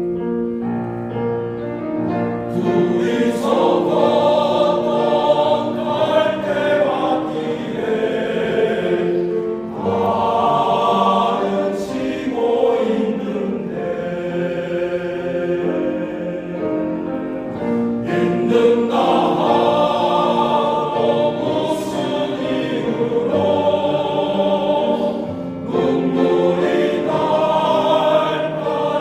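Men's choir singing in harmony, with held chords that swell louder and ease back several times.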